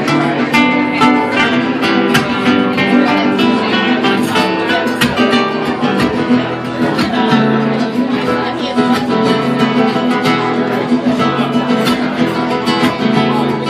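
Nylon-string acoustic-electric guitar played fingerstyle through a small amplifier, in quick continuous runs of plucked notes over a low bass line.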